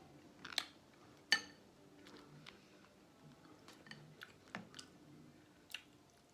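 Close-miked chewing of seafood boil, with scattered wet mouth smacks and small clicks. The loudest smack comes just over a second in.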